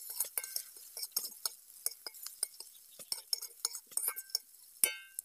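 Flat metal spatula scraping and tapping against an iron kadai while stirring onions and garlic: a run of light clinks and scrapes, with one louder ringing metallic clink near the end.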